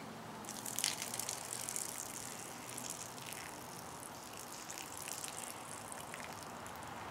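Liquid being drained out of a small opened cup of peas, trickling and splashing, strongest for a couple of seconds near the start and again more weakly later, with a few small clicks of handling.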